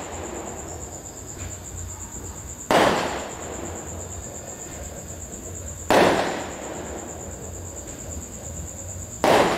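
Fireworks going off: three loud bangs about three seconds apart, each fading away quickly.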